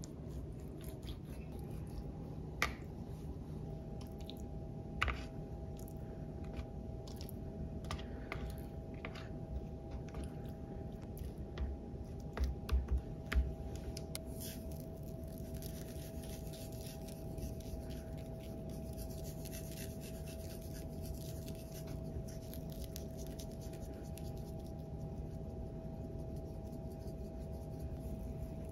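Kitchen food-preparation sounds: scattered light clicks and taps of utensils and ingredients being handled, with a quick run of knocks about halfway through, over a steady hum.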